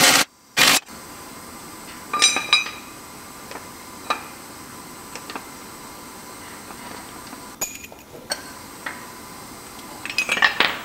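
Steel ball joint press parts, the heavy C-frame and its adapter cups, clanking and clinking against each other as they are handled and fitted together. There are a couple of loud clanks right at the start, ringing clinks about two and four seconds in, scattered light knocks, and a quick run of clinks near the end.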